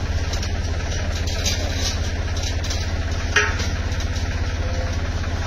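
Tractor diesel engine running steadily under hydraulic load as it raises a disc harrow's transport wheels, with one short knock about three and a half seconds in.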